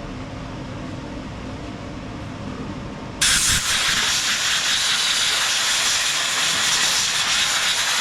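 Compressed-air blow gun hissing in one long, steady blast that starts abruptly about three seconds in, blowing dirt and debris off a push mower, over a steady low hum.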